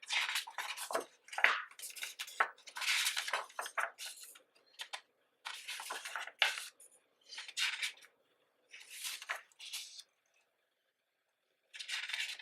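Pages of a thick photobook being turned one after another: a series of short papery swishes and rustles, irregularly spaced, with a quiet pause about ten seconds in.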